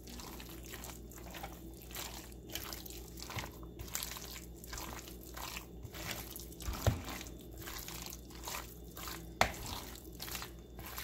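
A hand squeezing and kneading raw boneless chicken pieces in a thick, wet batter of egg, flour and cornstarch. It makes repeated squelching strokes, two or three a second, with two sharper knocks in the second half.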